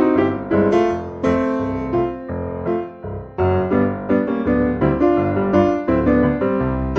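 Background music played on piano or electric piano, with notes struck in quick succession and no singing.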